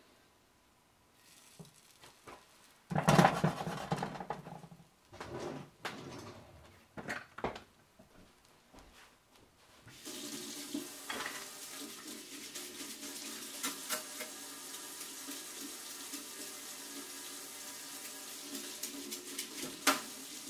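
Kitchen tap running into a sink while utensils are washed. The water starts about halfway through and runs steadily to the end, with a few sharp clinks of utensils. In the first half there are short, louder bursts of water and handling.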